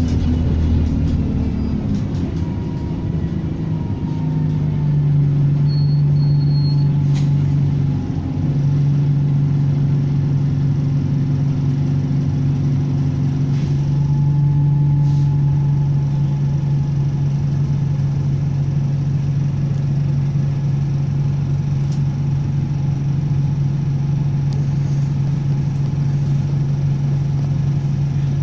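Diesel engine of a double-deck bus running under way, heard from inside. The engine note shifts twice in the first eight seconds as the gearbox changes, then holds steady, with a faint turbocharger whistle over it.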